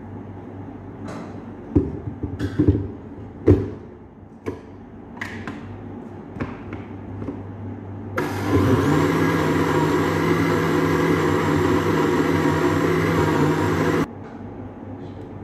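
Knocks and clatter of a blender jug being handled and set on its base, then an electric countertop blender running for about six seconds to blend juice. Its motor rises in pitch as it starts and stops abruptly.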